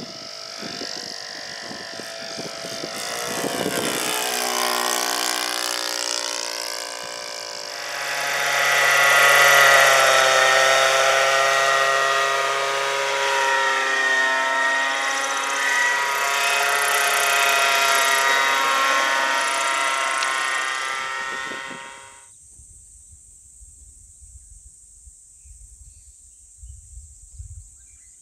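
Gasoline-engined radio-controlled scale Iroquois (Bell UH-1) model helicopter flying, its engine and rotor making a steady drone that grows louder about 8 s in and then cuts off suddenly about 22 s in.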